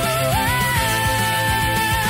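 Rock song playing: a steady drum beat under a held, wavering melody note that steps up in pitch about half a second in.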